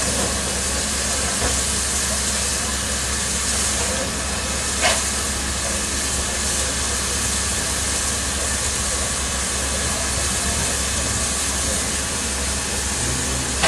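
Steady hiss of steam escaping from a standing Bavarian Pt 2/3 steam tank locomotive, with one short sharp sound about five seconds in.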